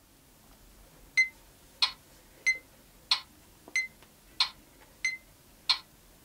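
Cherub WMT-555C digital tuner-metronome in metronome mode, ticking out eight evenly spaced beats at about one and a half beats a second. It starts about a second in, and some beats have a short ringing ping on top of the click.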